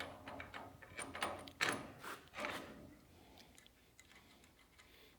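Light metal clinks and knocks from tie rod and spindle parts being handled and fitted on a drop-axle front end, a quick run of them over the first few seconds that then thins out to a few faint ticks.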